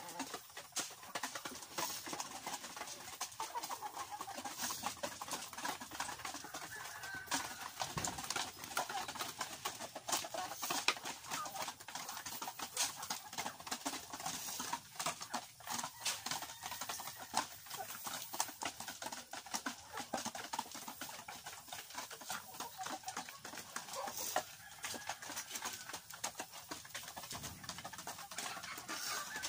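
A flock of Rhode Island Red hens clucking, with many short clicks and rustles throughout.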